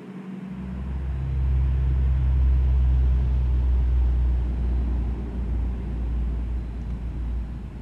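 Low engine rumble passing by: it swells up within the first second or two, holds for a few seconds and fades away near the end.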